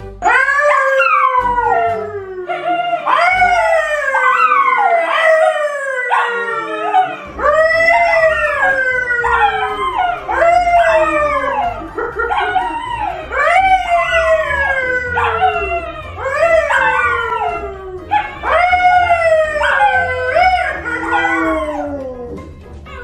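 A man and two dogs, a yellow Labrador and a brown poodle, howling together: a long series of pitched howls that rise and then fall, several voices overlapping.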